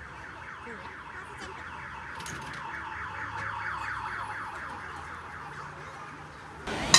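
An electronic alarm sounding a rapid, repeating warble of pitch sweeps. Near the end it is cut off abruptly by louder crowd din with a sharp clatter.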